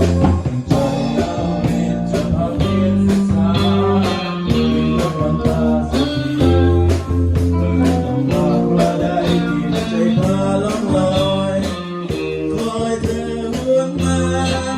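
A song played by a band: a guitar melody over bass and a steady drum beat.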